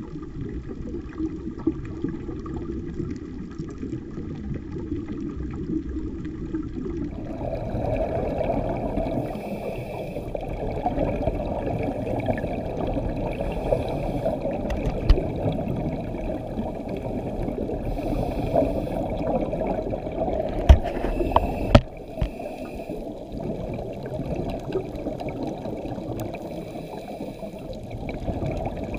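Muffled underwater rushing and gurgling of a scuba diver's exhaled bubbles, heard through an action camera's waterproof housing. Two sharp knocks about a second apart come roughly two-thirds of the way through.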